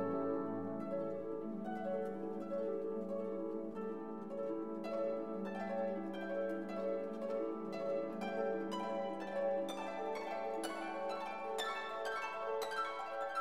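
Background music: plucked string notes over a held low tone, the plucking growing busier from about five seconds in.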